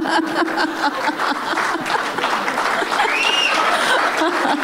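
Audience laughing and applauding at a joke, with dense clapping throughout. A short high whoop rises and falls about three seconds in.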